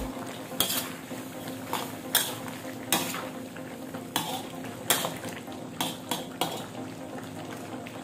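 A metal ladle stirring chicken pieces in a large steel wok, with about nine irregular clinks and scrapes against the pan over the frying of the chicken in its sauce.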